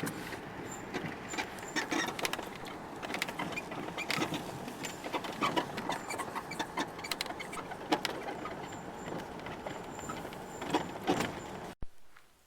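A vehicle driving slowly down a rough, bumpy track, with a steady rumble and many rattles and knocks as it jolts over the bumps. The sound cuts off abruptly near the end.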